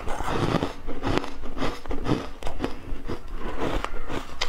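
Chewing a mouthful of refrozen ice: a run of irregular crunches and crackles.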